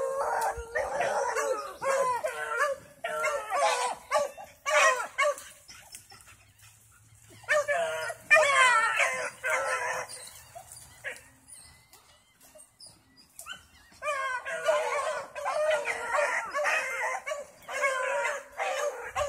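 Several dogs baying and howling together in long overlapping bursts. The calls die down about six seconds in and again about ten seconds in, then start up again.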